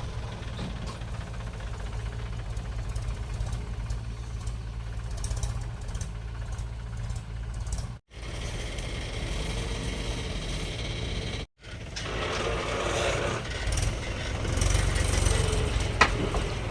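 Heavy diesel engine running steadily, a low even drone, with the sound cutting out briefly about eight seconds in and again about eleven seconds in.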